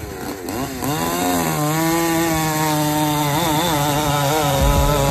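Ported Stihl 046 two-stroke chainsaw, revved in a few quick blips and then held at high speed cutting through a large log, its pitch wavering as the chain bites.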